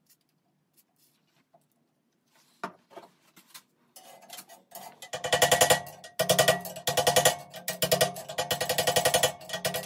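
Hammer striking a screwdriver used as a drift in the head tube of a steel late-1970s Schwinn bicycle frame. The strikes come in rapid runs from about halfway, and the frame rings under the blows. A few light handling clicks come first.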